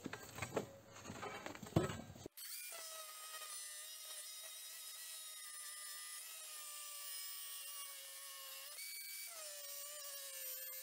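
A few light knocks and clinks, then a cordless angle grinder cutting through a steel pipe: a steady high whine whose pitch dips briefly once near the end as the disc bites under load.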